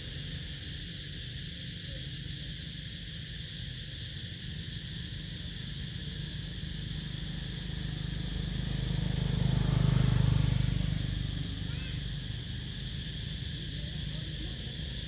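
Steady outdoor background of low hum and high hiss; about ten seconds in, a vehicle passes along the road, swelling up and fading away over some four seconds.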